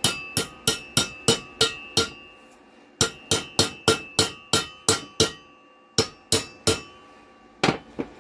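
Hammer striking steel, the blows coming in quick runs of sharp, ringing strikes about three a second with short pauses between, as welded steel pieces are knocked into place.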